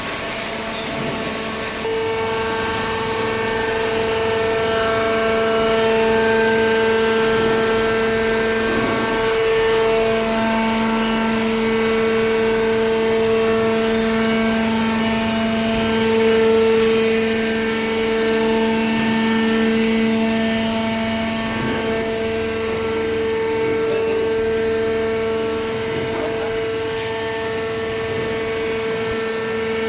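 Hydraulic cardboard baler's pump and electric motor running, a steady whine made of several held tones that swell and fade without changing pitch, getting louder about two seconds in.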